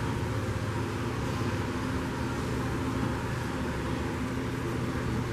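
Steady machine hum with an even hiss over it, unchanging throughout, like a fan or ventilation unit running.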